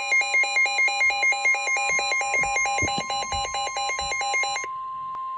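Emergency alert attention tones: a fast-pulsing electronic alarm layered over a steady high tone, announcing a severe thunderstorm warning. The pulsing cuts off after about four and a half seconds, leaving the steady tone alone briefly.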